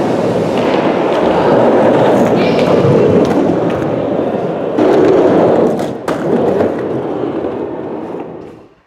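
Skateboard wheels rolling over a concrete skatepark floor: a loud, continuous rumble broken by a few sharp clicks and knocks from the board. The rumble fades out near the end.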